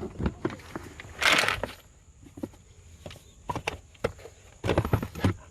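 Scattered knocks and clatter, with a short rushing noise about a second in and a cluster of clicks near the end.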